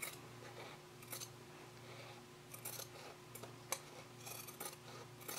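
Scissors snipping through layered cotton quilting fabric in short, irregular cuts, trimming a seam allowance; faint.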